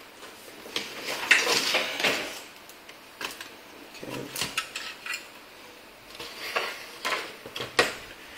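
Clicks and light metallic clatter from handling an LCD monitor's sheet-metal chassis as a cable is unplugged and the power/inverter board in its metal shield is lifted out. The clatter is busiest about a second in and again near the end.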